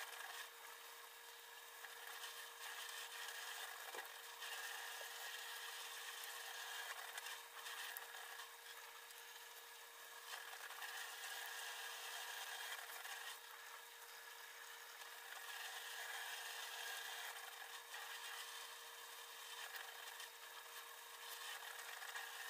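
Faint rubbing and tearing of fresh vegetable stems being peeled by hand, swelling and easing with the work, over a steady faint hum.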